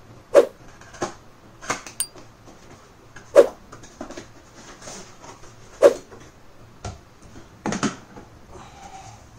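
Hands opening a cardboard product box and pulling out its paper-pulp inner tray: a string of sharp knocks, taps and scrapes of cardboard, the three loudest spread across the first six seconds.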